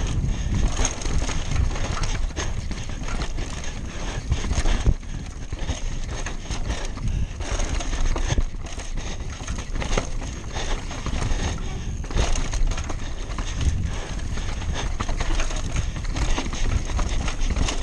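Downhill mountain bike ridden fast over rocks and roots: a continuous, irregular clatter of tyres and suspension hitting the rough trail and the bike rattling, over a low rush of wind and rolling noise.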